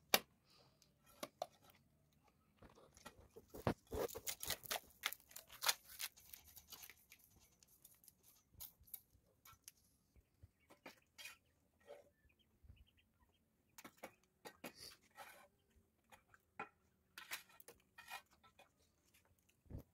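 Scattered light clicks, taps and scrapes of hands and a screwdriver working at metal electrical boxes set into a concrete column, busiest a few seconds in.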